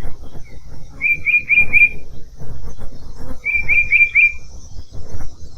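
A songbird singing a short phrase of four quick, identical chirps, twice, over a steady low rumble.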